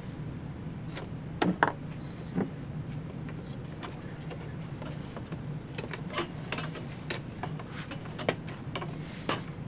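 Scattered small clicks, taps and knocks from handling a wicker picnic basket and its handle, a couple of sharper knocks in the first two seconds and a run of lighter ticks after that, over a steady low hum.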